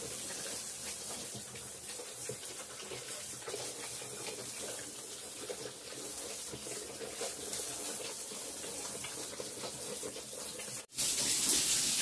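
Water spraying from a garden hose nozzle onto piglets and the wet concrete floor of the pen, a steady hiss. The sound cuts out for an instant near the end and comes back louder.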